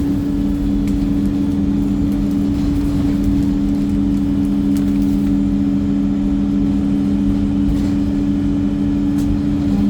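Wright StreetLite single-deck bus's diesel engine running with a steady, unchanging hum over a low rumble, with a few faint light clicks.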